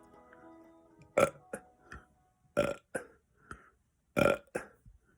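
A man's short, sharp burps and mouth smacks in quick succession, about nine in all from about a second in. He is gulping air with the smacks to force up more burps.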